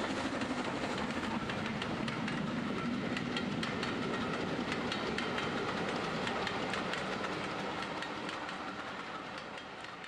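00 gauge model train running along the track, with a steady running noise and many sharp clicks as the wheels pass over the rail joints. The sound fades away over the last couple of seconds.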